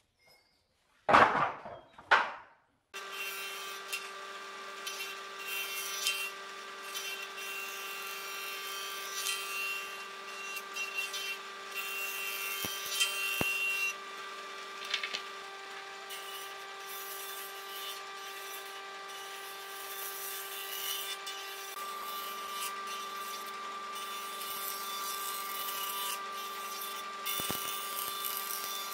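Two loud knocks as boards are set down. Then a combination jointer-planer starts running, steady from about three seconds in, its spinning cutterhead planing a wooden board fed across the tables.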